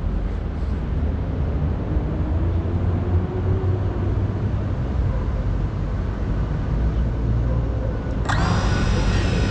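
An FPV quadcopter's brushless motors idle while it rests on the ground, giving a steady low buzzing rumble. Near the end the sound brightens and a higher whine joins in.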